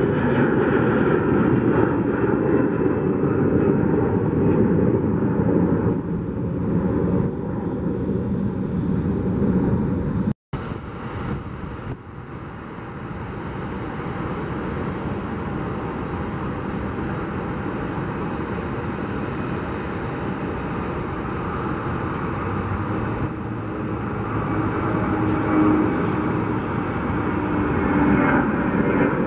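Twin-engine Airbus A320-family jet airliner at takeoff power during takeoff and climb-out, a dense, steady engine rumble. It breaks off for a moment about ten seconds in, then continues a little quieter and builds again near the end.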